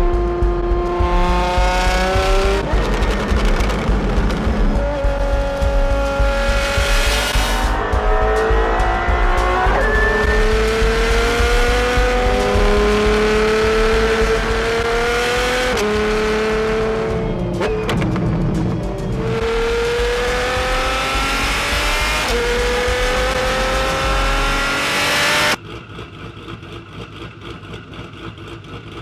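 High-performance car engine accelerating hard through the gears, its pitch climbing and then dropping back at each upshift every two to four seconds. About 25 seconds in it cuts abruptly to a much quieter engine running low.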